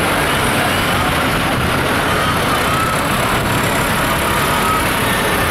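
Diesel engines of large farm tractors running steadily as the tractors drive slowly past close by, one after another.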